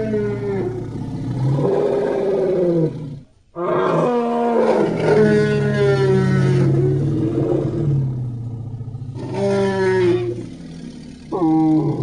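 A string of roaring sound effects: long, pitched, animal-like roars, broken by a short pause about three seconds in, with a brief final roar near the end.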